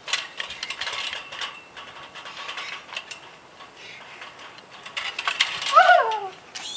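Chain-link fence rattling and clinking as someone climbs over it, a burst of clicks at the start and another about five seconds in. Near the end a person gives a short, loud cry that falls in pitch.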